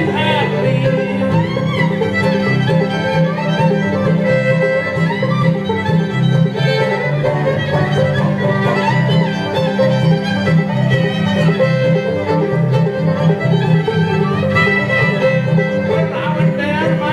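Old-time string band playing an instrumental fiddle tune: fiddle leading over banjo, guitar and upright bass, at a steady level without a break.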